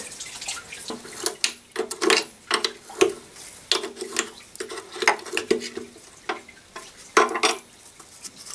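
An open-end wrench and other metal hand tools clink, knock and scrape against the bolts and steel chassis of a 1954 Panhard Dyna Junior as an engine mount is being undone. Some of the knocks ring briefly.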